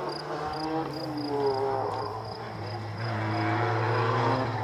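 Ford Sierra Cosworth rally car at full throttle on a distant stretch of the stage, its engine note climbing through the revs and dropping back at each upshift.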